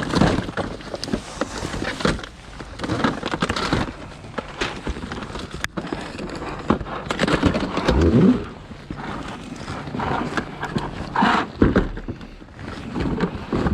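Scrap and junk being handled and rummaged through: irregular knocks, clatters and rustling.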